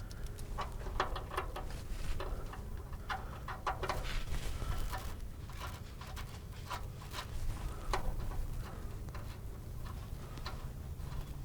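Irregular small metallic clicks and taps of a bolt being fitted and tightened to attach a fuel pump ground wire.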